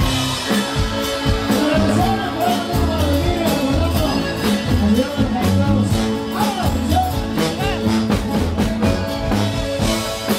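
Live norteño band music: accordion melody over a tuba bass line, with a steady beat.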